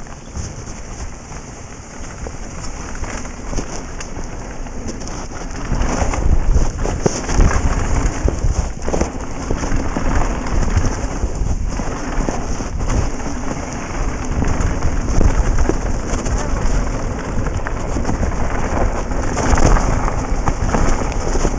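Wind buffeting a helmet-mounted camera's microphone, with tyres crunching and the mountain bike rattling over a rough dirt and gravel trail. Louder from about six seconds in.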